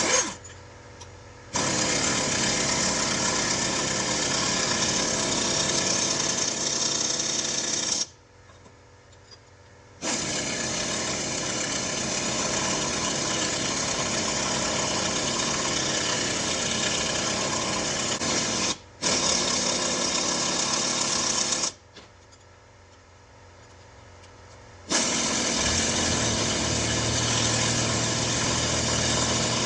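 Pneumatic air tool hammering in long bursts of several seconds, cutting off abruptly and starting again four times, as it works on the truck's front suspension parts.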